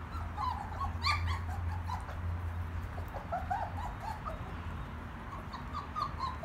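German shepherd puppies whining and squeaking in many short, high cries, one louder cry about a second in, over a steady low hum.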